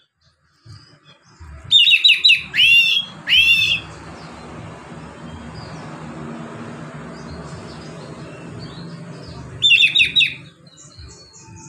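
Oriental magpie-robin singing its loud, relaxed 'ngeplong' song: three quick phrases of rapid, repeated down-slurred whistles about two to four seconds in, and another near ten seconds in. Between the phrases there is a steady low hum.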